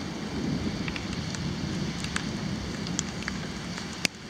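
Steady rain falling on wet pavement, with scattered drops ticking close by. A single sharp click about four seconds in.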